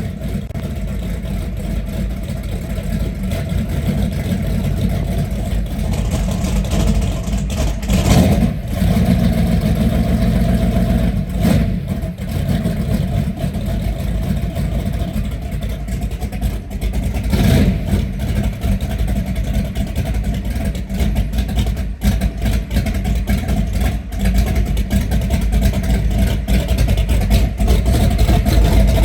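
A motor vehicle running steadily with a deep, continuous engine and road rumble. A few sharp knocks cut through it.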